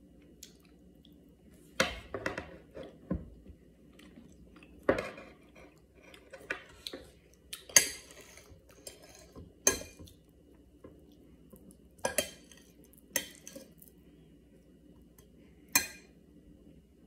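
Table knife and fork clinking and scraping on a plate while cutting up a fried egg. There are about ten sharp clinks spread out, with a longer scrape about eight seconds in.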